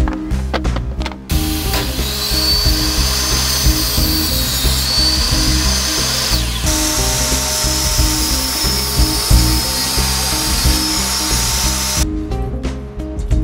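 Background music with a steady beat, over a power tool running with a steady hiss that starts about a second in and cuts off near the end.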